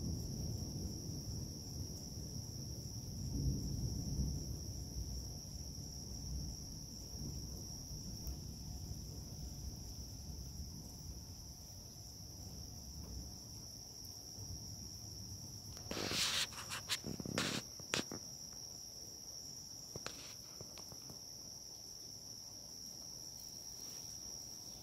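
Distant thunder rumbling and dying away over the first dozen seconds, under a steady high trill of night insects. A few sharp clicks come close together about two-thirds of the way in.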